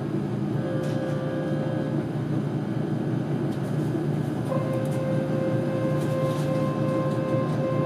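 KiHa 40 diesel railcar's single diesel engine running with a steady drone, joined about four and a half seconds in by a steady, even-pitched whine.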